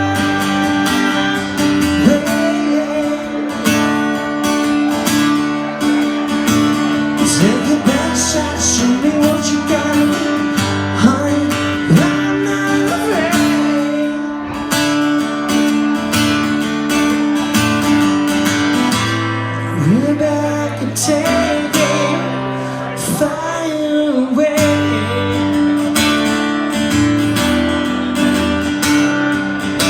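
Acoustic guitar strummed in steady chords, with a male voice singing over it for much of the time and dropping out near the end.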